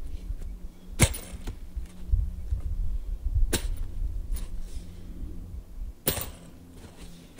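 A scoped rifle dropped onto a padded mat on snow, landing with a sharp thud three times about two and a half seconds apart, with low handling noise between the drops. This is a drop test to check whether the Trijicon Tenmile 3-18x44 scope holds its zero.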